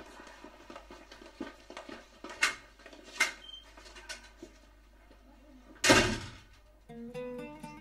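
Footsteps and sharp clicks along a hallway, then a door shut hard about six seconds in, with a loud bang. Acoustic guitar music starts about a second after the bang.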